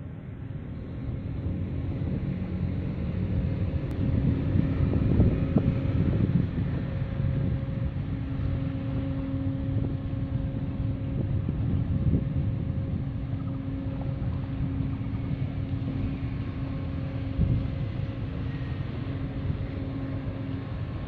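Steady low engine drone with a constant hum from a large ship under way, with wind gusting on the microphone.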